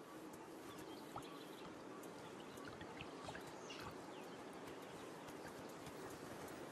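Faint outdoor ambience: a steady low hiss with scattered small ticks and a few brief high falling chirps a little past the middle.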